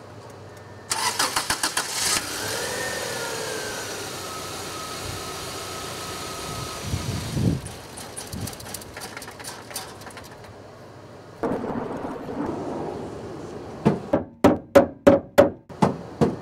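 1996 Subaru Legacy's 2.2-litre flat-four being cranked by the starter and catching about a second in, revving briefly and settling to a steady idle. Later it is cranked again, ending in loud rhythmic pulses. The car stalls and won't restart when hot, which the title puts down to a bad fuel pump.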